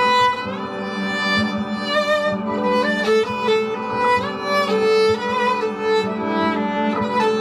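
Viola bowed live, a melody with notes sliding up in pitch, over a steady low note and other held notes from layered viola loops played back by a loop pedal, making a multi-part string texture.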